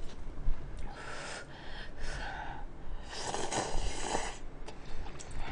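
A person slurping instant cup noodles and broth, in two stretches: a shorter one about a second in and a louder one about three seconds in.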